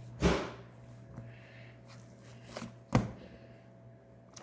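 Slime being squished and handled in the hands, with a few sharp squelching smacks, the loudest just after the start and about three seconds in. The slime is a cotton candy slime that went stiff after baking soda was mixed in.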